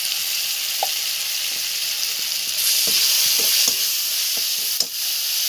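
Onion-tomato masala with freshly added chilli powder sizzling and frying in oil in a kadhai, stirred with a metal spatula that scrapes the pan a few times. The sizzle grows louder about halfway through, and a sharp clink of the spatula on the pan comes near the end.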